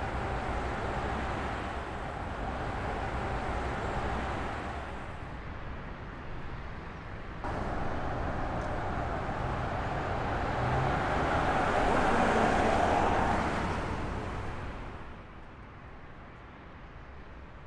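Car and tyre noise on a city road, a steady rush with no clear engine note, swelling to its loudest about twelve seconds in and then falling away.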